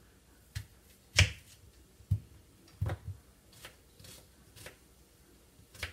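Kitchen knife cutting an onion on a plastic cutting board: a string of sharp, irregularly spaced knocks as the blade strikes the board, the loudest about a second in.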